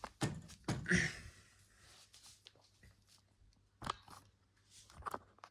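Camera handling noise: a few scattered knocks, clicks and rustles as the camera is picked up and moved.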